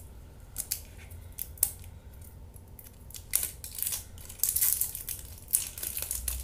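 Wrapper of a small skincare packet crinkling and crackling as it is handled and opened by hand. It comes in scattered sharp clicks that grow thicker in the second half.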